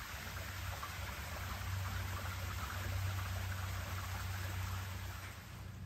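Shallow water running and trickling over the stone floor of a stone-walled channel, with a low steady rumble underneath.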